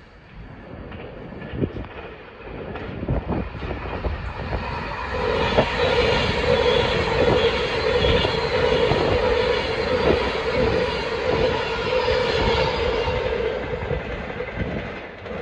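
Class 390 Pendolino electric train passing close by. The sound builds over the first few seconds and holds loud with a steady whine, while the wheels click repeatedly over rail joints. It drops away near the end.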